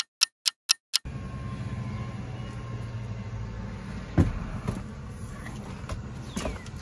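A ticking-clock sound effect, about four ticks a second, stops about a second in. It gives way to a steady low vehicle hum, with a few knocks from a plastic car dashboard being handled, the loudest about four seconds in.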